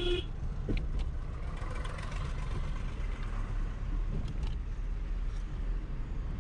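Car driving, heard from inside the cabin: a steady low rumble of engine and tyres on the road, with a hiss of road and wind noise that swells for a couple of seconds in the middle.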